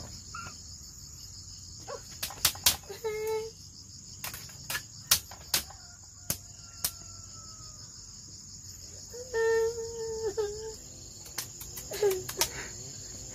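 Steady high-pitched insect chorus, with scattered sharp knocks and a few short high vocal sounds from a small child.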